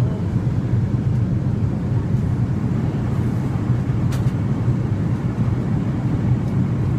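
Steady low drone of an airliner cabin in flight: engine and airflow noise.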